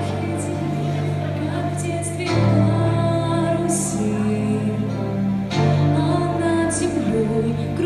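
Instrumental song intro: sustained chords over a bass line that moves to a new note about every three seconds, with a few short bright high accents.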